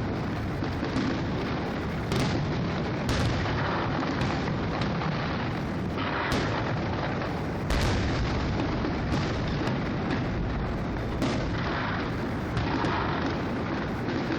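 Fireworks display: aerial shells bursting in irregular booms, one every second or so, the strongest about eight seconds in, over a continuous crackle from the bursts.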